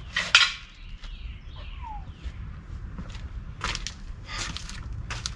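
A few sharp knocks and scuffs, like footsteps and parts being handled on concrete, the loudest a little after the start, with a few short falling bird chirps in the background.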